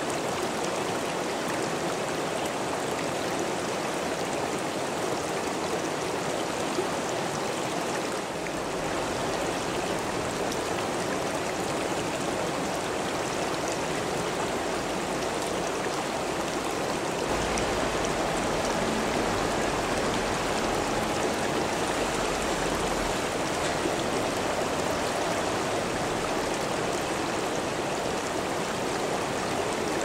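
Mountain stream flowing steadily over rocks, an even, unbroken rush of water.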